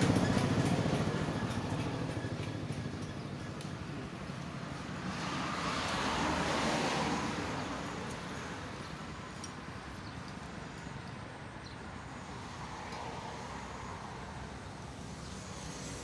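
Road traffic passing: a vehicle fades away over the first few seconds, and another swells up and passes about five to seven seconds in, over a steady background rumble.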